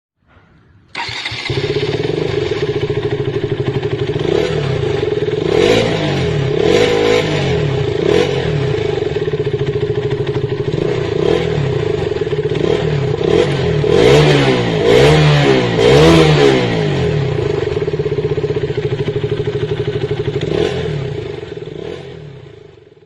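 KTM Duke motorcycle engine running, coming in suddenly about a second in. The throttle is blipped several times in short revs that rise and fall, with a cluster in the middle, before the sound fades out near the end.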